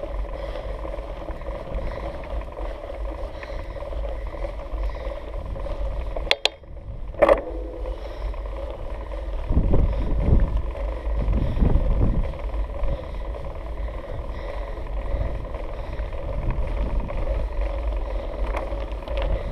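Mountain bike riding up a concrete track, heard through a bike-mounted GoPro as a steady rumble of tyre and wind noise. Two sharp clicks come about six and seven seconds in.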